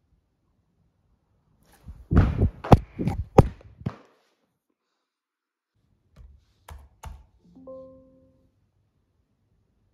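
A quick run of loud thumps and knocks about two seconds in, then a few fainter knocks and a brief steady tone near the end.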